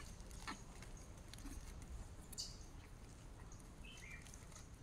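Quiet outdoor ambience: faint scattered rustles and ticks, with a short high chirp about halfway through and a brief two-note call near the end.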